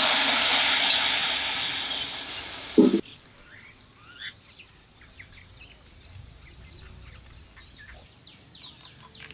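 Water doused onto glowing embers in a clay wood-fired stove hissing loudly and dying away over about three seconds, ending in a short thump. After that, faint bird chirps.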